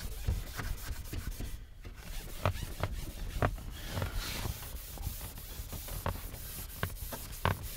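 Fine 000 steel wool scrubbing the wet inside of a car's rear window over the dot-matrix band, a continuous scratchy rubbing with many small irregular clicks. The glass is being scuffed clean so the window film will stick well.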